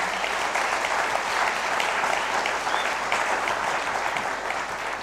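Audience applauding, a steady round of clapping that begins to die down near the end.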